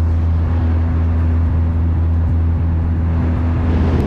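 Boat motor running steadily under way, a loud, even low drone that eases off right at the end.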